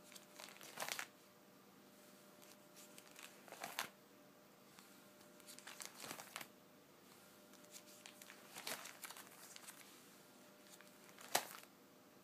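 Plastic sleeve pages of a trading-card binder being flipped, a faint crinkle with each turn, about five turns a few seconds apart.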